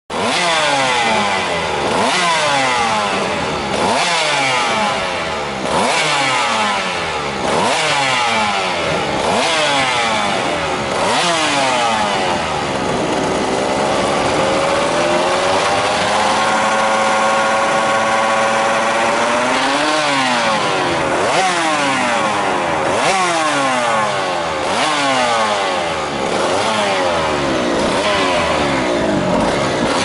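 Aprilia RS250 race bike's two-stroke, two-cylinder engine revved while standing: sharp throttle blips every second or two, each rising fast and falling back. About halfway through it is held at a steadier rev for several seconds, climbing slightly, before the blips resume.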